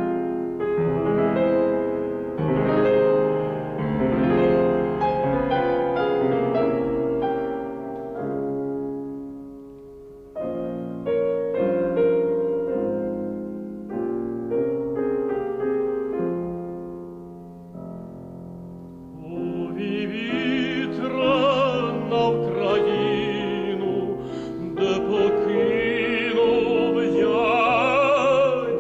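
Piano introduction to a Ukrainian folk-song arrangement, then an operatic tenor enters about two-thirds of the way through, singing with vibrato over the piano accompaniment.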